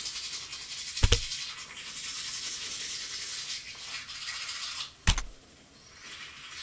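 Scratchy rustling noise, broken by two sharp knocks about four seconds apart; it drops away briefly after the second knock.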